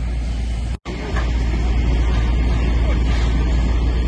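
On-scene audio from a burning house at night: a steady rumble and hiss, broken by a brief dropout about a second in where one clip is spliced to the next.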